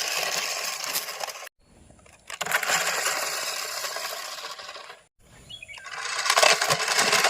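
Toy remote-control race car driving: the noisy whir of its small motor and wheels, with many fine clicks. It cuts off suddenly twice and starts again.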